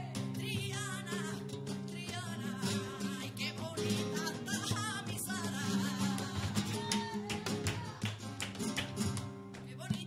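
Live flamenco music: a singer's ornamented, wavering vocal line over acoustic guitar, with frequent sharp percussive strokes.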